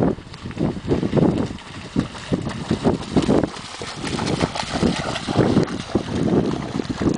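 Siberian husky running through shallow river water, its legs splashing in a quick, irregular run of splashes, with wind buffeting the microphone.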